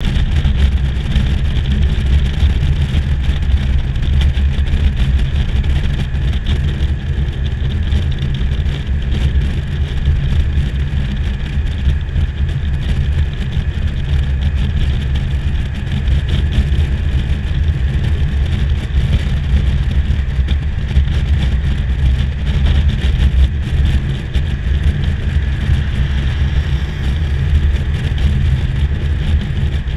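Steady running noise of a vehicle cruising at road speed: a low engine drone with road and wind noise, unchanging throughout.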